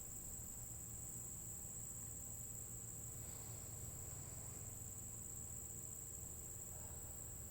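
Steady high-pitched chorus of singing insects, with a faint low hum underneath.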